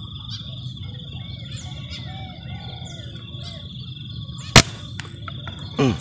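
A single sharp shot from an uklik air rifle about four and a half seconds in, fired at a spotted dove. Birds call in the background before it, and a short falling sound follows just before the end.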